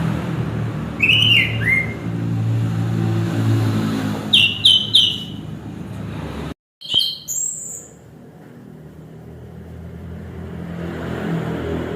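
Orange-headed thrush singing in short separate phrases: a few falling whistles, a quick run of three high notes, then sharp high notes after a brief break in the sound. A low engine hum runs underneath, fades out midway and comes back toward the end.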